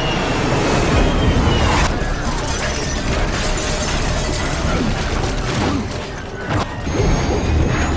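Movie sound effects of an airliner in a crash dive: a loud, continuous rush of air and engine noise with rattling and crashing impacts, and a few thin whistling tones that slide in pitch.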